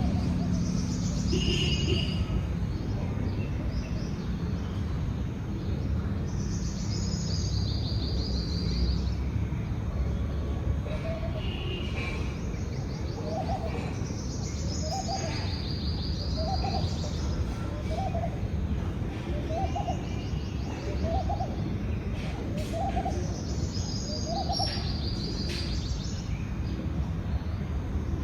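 Birds singing over a steady low rumble. A high songbird phrase recurs every several seconds, and from about twelve seconds in a lower, short call repeats roughly once a second, about nine times.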